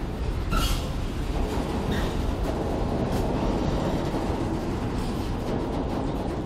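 Freight train of open-top gondola wagons rolling past close by: a steady rumble of steel wheels on the rails, with a brief high squeal about half a second in.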